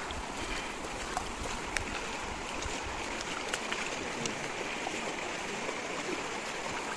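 Shallow river flowing over stones and riffles: a steady rush of running water, with a few faint ticks.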